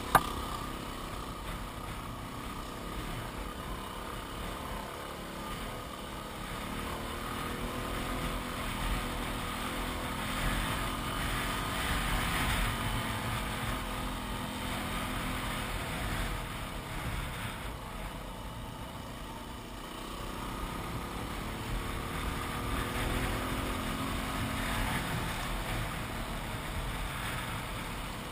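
Yamaha WR250R's single-cylinder four-stroke engine running under way, its pitch rising and falling with the throttle a few times. A single sharp knock right at the start.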